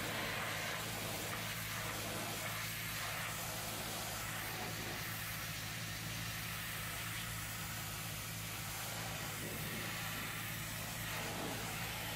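High-pressure hot-water washer jet spraying steadily, hissing as it rinses soap foam off a van's sheet-metal side panels, over the steady low hum of the washer's pump.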